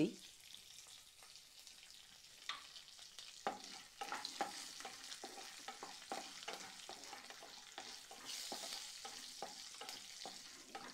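Hot oil sizzling in a wok-style pan, frying a tempering of mustard seeds, cumin, curry leaves, groundnuts and turmeric. From about three and a half seconds in, a wooden spatula stirs and scrapes through it in quick, irregular strokes. The sizzle swells briefly about eight seconds in.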